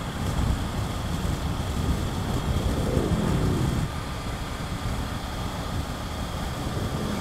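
Wind rush and road noise on a moving motorcycle, with the Triumph Tiger 900's three-cylinder engine running underneath. There is a brief rise and fall in pitch about three seconds in.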